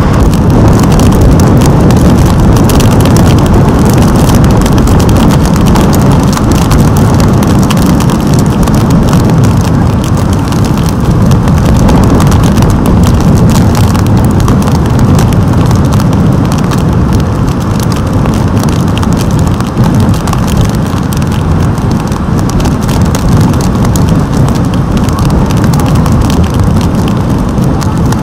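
Tropical-storm surf and wind: a loud, constant rumbling roar of breaking waves, heaviest in the low end.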